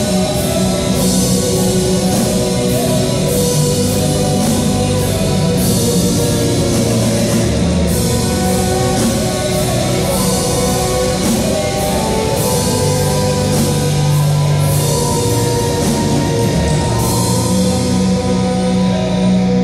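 Folk-metal music with a drum kit keeping a steady beat, cymbal strokes about twice a second, over guitars. Near the end the drums stop, leaving held low tones.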